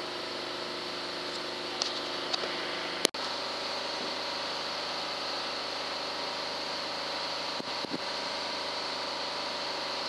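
Steady mechanical hum with several constant tones, like machinery or fans running, with a couple of faint clicks and a brief break about three seconds in.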